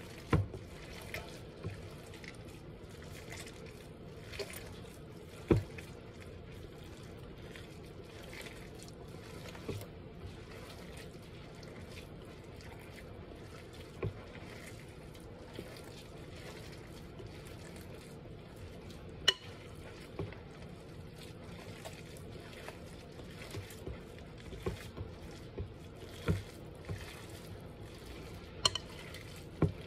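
Crab cake mixture being stirred and folded with a metal spoon in a glass bowl: soft wet squishing, with sharp clinks now and then where the spoon strikes the glass.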